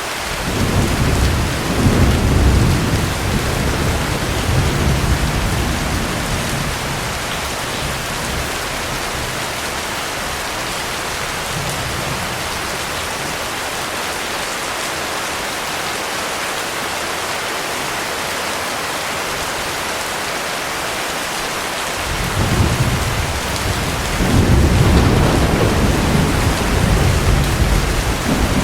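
Steady heavy rain falling, with rolling thunder rumbling low for several seconds right at the start and again from about two-thirds of the way through to the end.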